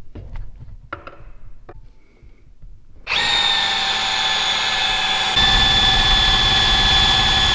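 Cordless drill spinning the engine's oil pump through a socket, a steady whine starting about three seconds in and growing a little louder halfway through: the oil system being primed before the first start. A few light clicks come before it.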